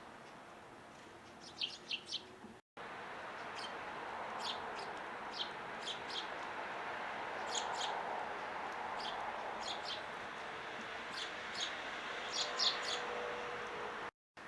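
Eurasian tree sparrows chirping in short, high, repeated notes over a steady background hiss. The sound cuts out briefly twice.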